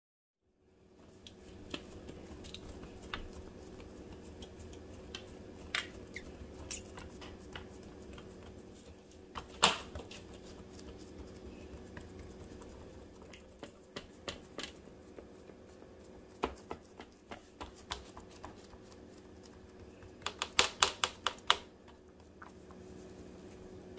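Scattered light clicks and taps over a steady hum, with one sharper knock midway and a quick run of about seven taps near the end.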